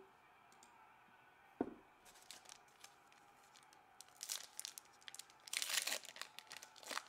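A single knock about a second and a half in, then the foil wrapper of a 2021 Bowman baseball card pack crinkling and tearing as it is opened by hand, in bursts of crackling.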